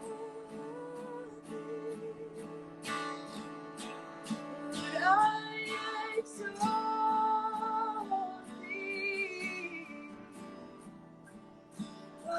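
Worship music: acoustic guitar strummed in a steady rhythm under a woman singing sustained, sliding notes without clear words.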